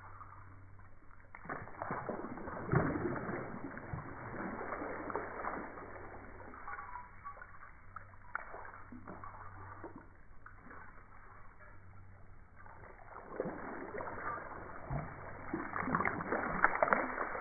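Water splashing and sloshing in irregular surges, sounding dull and muffled.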